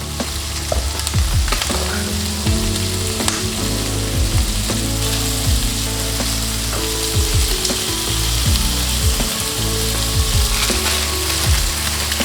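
Food frying in a pan with a steady sizzle, with background music underneath.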